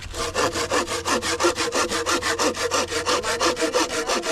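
A hand saw cutting through a dry log in quick, even back-and-forth strokes, several a second. The wood is dry and sound, which the sawyer takes for spruce.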